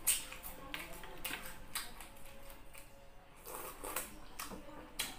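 Close-miked eating sounds: wet mouth noises and a string of short crisp clicks from chewing fried tilapia and rice, with a sip from a small glass bowl of dipping sauce a few seconds in.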